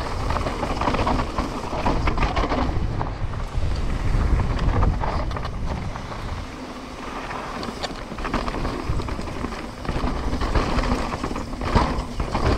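Trek Slash 9.9 enduro mountain bike running fast down a rough trail: tyres rolling over dirt and rock, with the bike's rattles and knocks and wind buffeting the microphone. A hard knock near the end as the suspension bottoms out.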